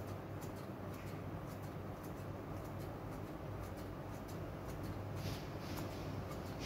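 Kitchen scissors snipping broccoli into small pieces on a plate: a run of light, irregular clicks, over a steady low hum.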